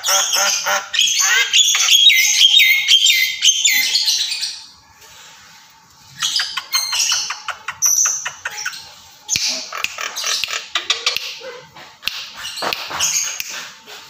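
Caged Javan mynas chattering: a rapid, dense run of harsh squawks, clicks and whistled notes. There is a short lull about five seconds in, then quick clicking calls and more squawks.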